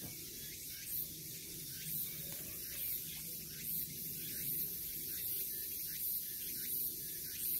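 Insects calling outdoors: a hissing, pulsing call that repeats about once a second, over a low steady hum.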